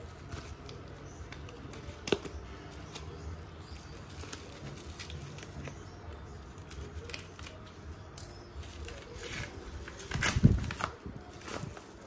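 Small spring thread snips clicking and cutting into a padded kraft paper mailer, with paper rustling. About ten seconds in comes the loudest sound, a brief burst of crinkling as the envelope is pulled open.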